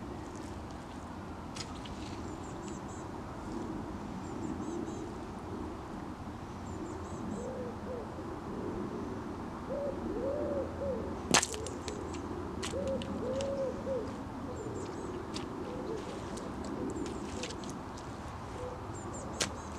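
A leather boot slowly pressing down on tomatoes, with a few sharp clicks, the loudest a crack about eleven seconds in. Behind it, a bird's low calls repeat in short phrases from about eight seconds in, with faint high chirps of small birds.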